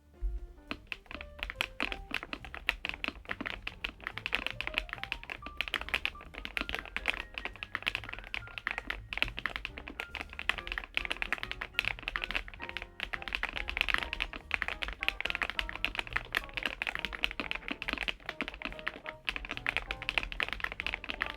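Fast, continuous typing on a Kzzi K98 mechanical keyboard with PBT keycaps, many keystrokes a second, over background music.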